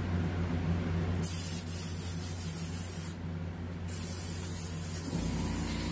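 Airbrush spraying in two hissing bursts, each about two seconds long, with a short break between them: the brush being sprayed out clean between paint colours.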